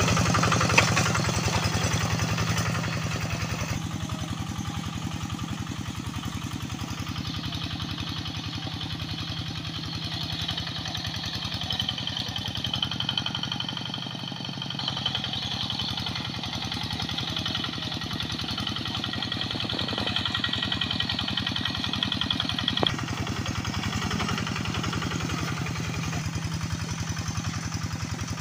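Single-cylinder diesel engine of a Quick Impala two-wheel hand tractor running steadily under load while it works through a flooded rice paddy. Its sound changes abruptly about four seconds in and again near the end.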